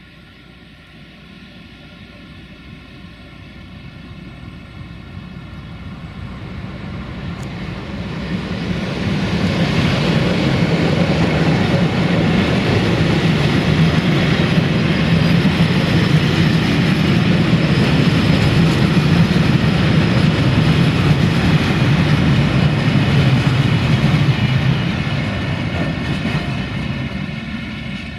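Freight train passing, hauled by an LDE1250 (040-DF) diesel-electric locomotive. The locomotive's engine runs as it approaches and goes by, then the box wagons' wheels roll over the rails. The sound builds over about ten seconds, stays loud and steady, and eases off near the end.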